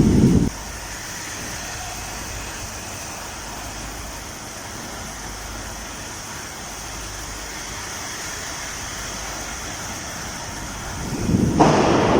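Steady hiss of heavy rain. A low rumble fades out about half a second in, and another swells up near the end.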